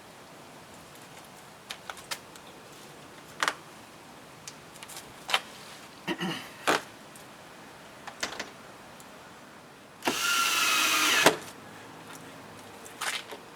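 Scattered knocks and clatter of plywood and hardware being handled, then a cordless drill runs for about a second and a half near the end, driving a screw to fasten a plywood window cover.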